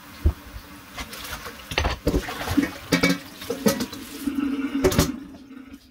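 Water running from a kitchen tap into a sink, with several knocks and clatters of things being handled under the stream.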